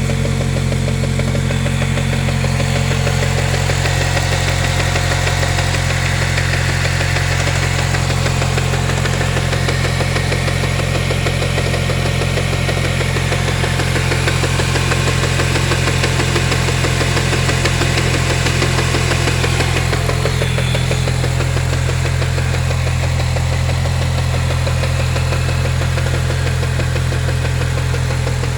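A Cobalt SS's supercharged 2.0-litre Ecotec four-cylinder (LSJ) idling steadily with a knocking noise. The owner ties it to supercharger belt slip on a stage-2 setup with a 2.8-inch pulley.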